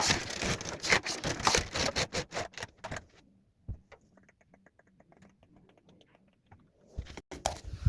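Dense rapid clicking and scraping of a bent-wire figure being handled and repositioned. After about three seconds it drops to faint quick ticks, and the clicking and rustling return near the end.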